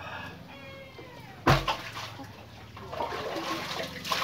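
A short animal call with falling pitch, then a sudden loud thump about a second and a half in, followed by water splashing steadily onto a wet concrete floor.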